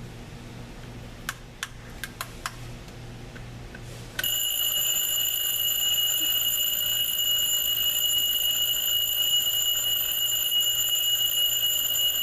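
A few sharp clicks, then, about four seconds in, the Infinity Instruments retro style battery quartz alarm clock starts its alarm: a steady, unbroken, high-pitched tone.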